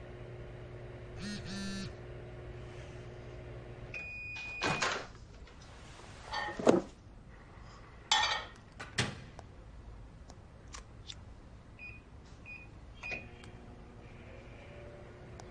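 Microwave oven reheating pizza: it hums steadily, then stops about four seconds in with a long beep. The door is opened and several clunks follow as the food is handled, the loudest about seven seconds in. A few short beeps come near the end.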